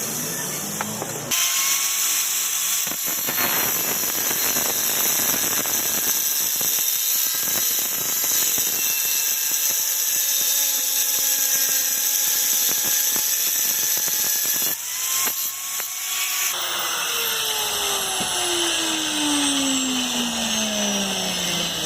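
Electric power tool running under load with a loud, steady grinding hiss that starts abruptly about a second in and stops suddenly near the end, after which the motor spins down with a falling whine.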